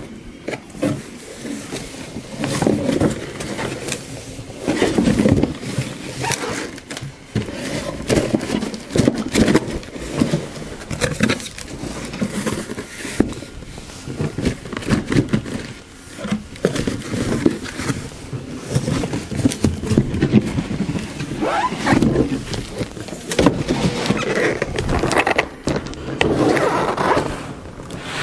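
Cardboard shipping carton and its packing being handled: irregular rustling, scraping and knocking as a boxed appliance is dug out of the carton and lifted onto a table.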